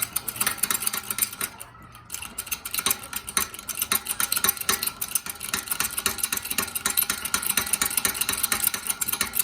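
Rapid, continuous metallic clicking and clinking as the shop press's jack is run down, with a brief lull about two seconds in.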